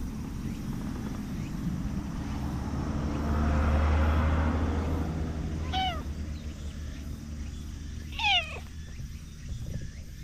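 Tabby cat meowing twice, two short falling meows just past halfway and again near the end, the second louder. A low rumble swells before the first meow.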